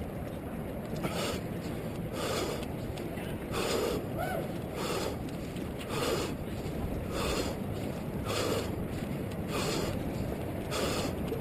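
A runner's rhythmic breathing close to a head-worn camera, one puff of breath about every second and a bit, over a steady low rumble of wind and movement.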